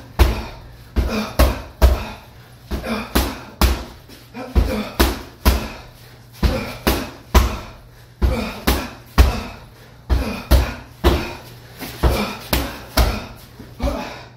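Boxing gloves punching a hanging heavy bag: a steady run of sharp thuds, about two a second, often thrown in quick doubles and triples.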